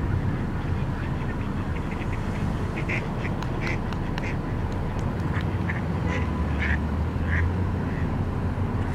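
Canada goose giving a series of short calls, about ten over four or five seconds in the middle, over a steady low rumble.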